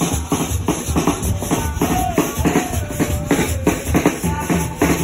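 Drum-led music with a steady beat of bass drum and hand percussion, and a short higher melodic line about two seconds in.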